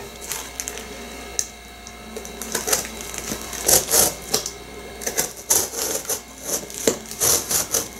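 Long cardboard shipping box being worked open at its taped end by hand: irregular clicks, scrapes and crinkles of packing tape and cardboard, sparse at first and coming thick and fast from about three and a half seconds in.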